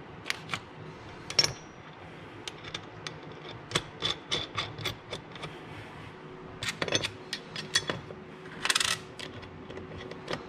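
Metal parts clinking and knocking as a steel transmission-mount bracket, bolts and washers are handled on a metal workbench. A sharper clank with a short ring comes about a second and a half in, and a brief rattle a little before the end.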